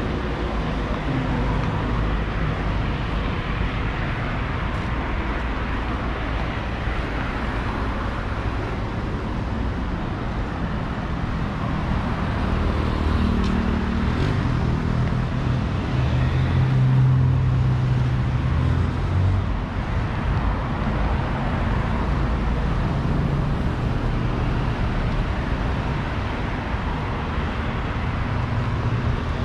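City street traffic: cars and other motor vehicles driving by, a steady road noise with engine hum that grows louder around the middle as vehicles pass close.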